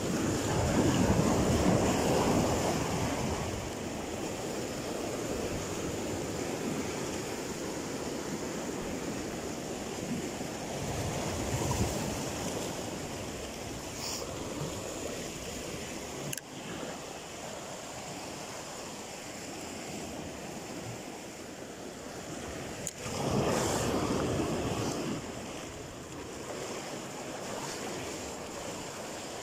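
Sea waves washing and surging against a rocky shoreline, with louder swells near the start and again about three-quarters through. A couple of short knocks, likely from handling of the phone.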